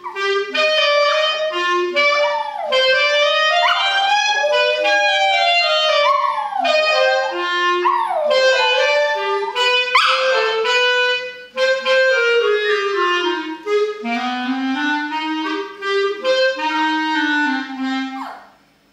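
Yorkshire terrier howling along to woodwind music, a series of long wails sliding up and down in pitch against the music's held notes, the strongest about ten seconds in. The music stops just before the end.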